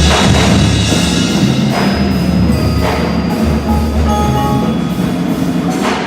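Marching band playing loud held low chords, with four crash strikes over ringing mallet percussion and chimes.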